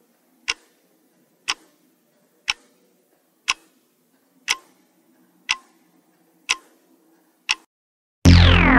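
Quiz countdown timer sound effect ticking once a second, eight ticks. Near the end a loud answer-reveal sound effect comes in, with a sweep falling in pitch.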